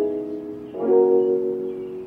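Background music: sustained keyboard chords, changing to a new chord about a second in.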